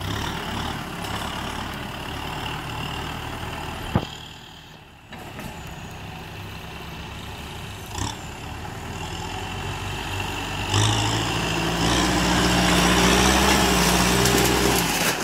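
Kubota M6040SU tractor's four-cylinder diesel engine running as it pushes dirt with its front blade, with a sharp click about four seconds in. The engine grows louder from about eleven seconds on, working under load.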